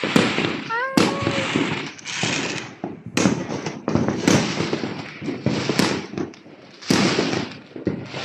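Aerial fireworks going off in quick succession: sharp bangs about every second, with dense crackling between them.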